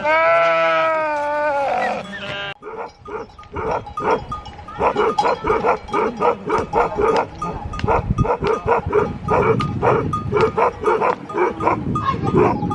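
A sheep's long, wavering bleat, cut off abruptly about two and a half seconds in. Then a Himalayan sheepdog (bhote kukur) barks over and over, about three barks a second.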